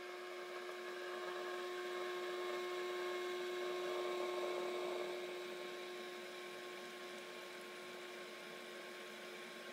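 Induction cooktop running with a steady hum from its cooling fan and coil, over the hiss of water heating toward a boil in an uncovered stainless steel saucepan. The sound eases a little about halfway through.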